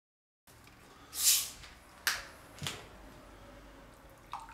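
A fizzy drink bottle being opened: one short hiss of escaping gas about a second in, then two sharp clicks.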